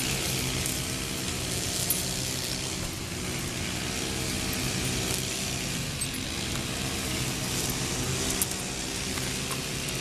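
Steady low mechanical hum, like an engine running, under an even hiss, with a couple of faint clicks.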